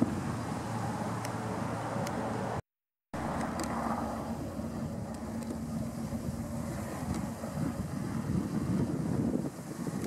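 Steady low outdoor rumble and hiss with a faint steady hum, broken by half a second of silence about three seconds in.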